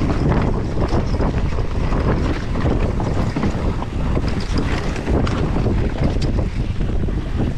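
Mountain bike descending a rough enduro trail: heavy wind buffeting the camera's microphone, with tyres rumbling over dirt and rock and frequent irregular knocks and rattles from the bike.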